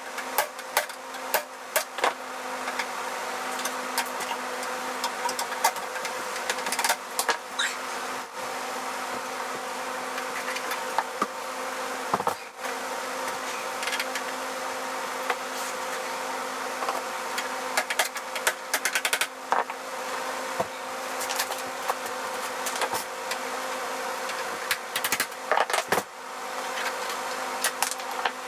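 A steady buzzing hum under irregular clicks and knocks of hand work on a metal breaker panel, knocking out punch-outs and fitting grommets.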